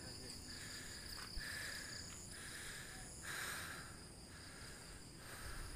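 A faint chorus of insects chirring: several steady high-pitched tones, the lowest of them swelling and fading in stretches of about a second.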